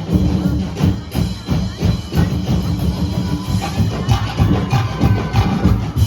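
Loud drum-heavy music for street dancing, with a fast, steady beat of low drum hits.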